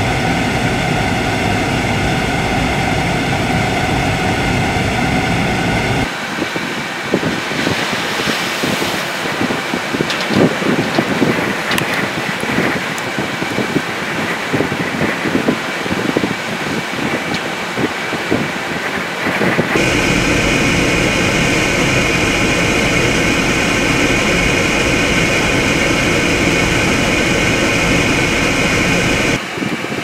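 Storm-force wind blowing hard across the microphone, with waves breaking against the shoreline rocks. It is a steady dense rush at first, turns uneven and gusty with sharp peaks from about 6 to 20 seconds in, then settles into a steady rush again.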